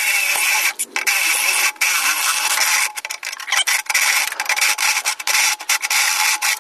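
Step drill bit (Unibit) in a power drill cutting through the sheet-steel wall of an electrical panel, enlarging a knockout to pass a 3/4-inch conduit nipple: a steady metal-on-metal grinding, broken by a few short pauses.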